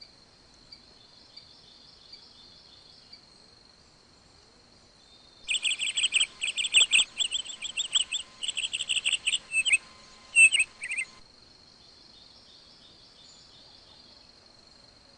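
A bird sings a rapid, varied run of loud chirps and trills for about six seconds in the middle, over a steady high insect trill that runs beneath throughout.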